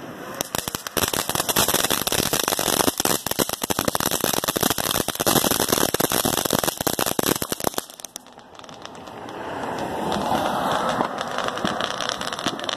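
Ground firework going off in a fast, dense crackle of pops for about seven seconds, then cutting off suddenly; a softer, rougher sound builds up again after it.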